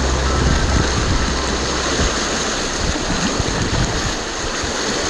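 River whitewater rushing through a riffle, with wind buffeting the microphone. The tail of background music fades out in the first couple of seconds.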